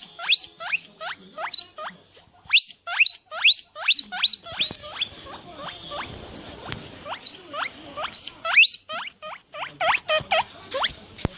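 An animal squeaking: a rapid run of short, high squeals, each rising in pitch, about three a second, with a stretch of rustling hiss in the middle of the run.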